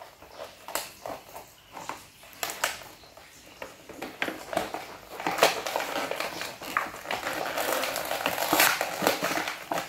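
A toy's clear plastic blister-pack dome crackling and clicking as hands press and pull at it to work the toy out. Scattered clicks at first, then denser crackling from about four seconds in.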